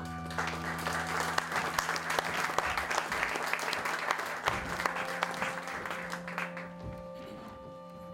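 Audience applauding, swelling quickly and fading out after about six seconds, with a few held notes of accompaniment music sounding steadily underneath.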